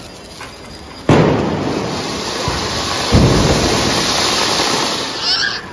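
A flower-pot (anar) fountain firecracker catches about a second in and sprays sparks with a loud, steady hiss. It swells louder about two seconds later and dies away just before the end.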